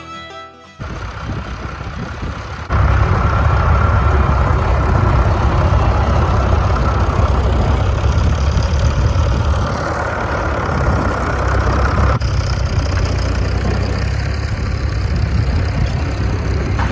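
Tractor engines running steadily in a few short clips cut together, louder from about three seconds in and changing again near twelve seconds.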